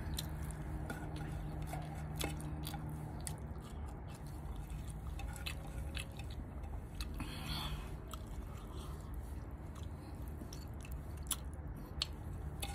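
Close-up eating sounds: chewing with wet lip smacks and many short mouth clicks as sauce is wiped off a plate with the fingers and licked off them, over a steady low hum.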